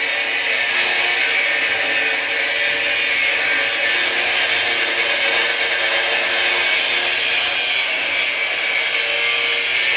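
Electric blower motor of a rice-husk furnace running steadily, a continuous whirring rush of air with a faint steady hum under it.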